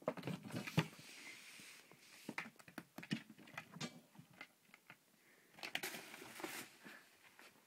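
A cat scuffling and batting at a toy on the floor: irregular scratchy rustling and light knocks, in two busier spells, near the start and again about six seconds in.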